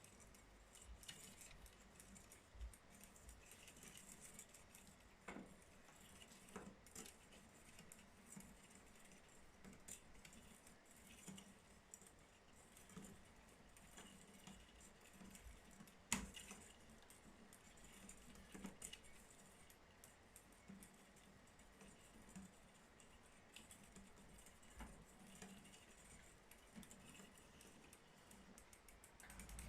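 Bicycle knocking while ridden: faint, irregular clicks and small rattling knocks, with one louder knock about sixteen seconds in. An unwanted knock from the bike, the fault the rider is recording.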